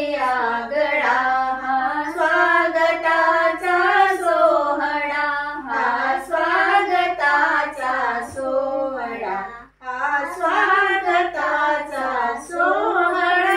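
A young girl and women singing a Marathi welcome song (swagat geet) together, with a short break a little before ten seconds in and a long held note near the end.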